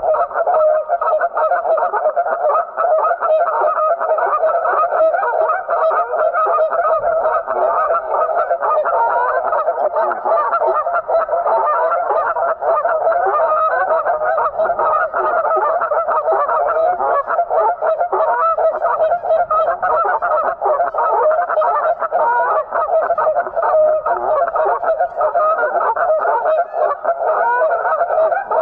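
A flock of geese honking, many overlapping calls in a dense chorus that goes on without a break.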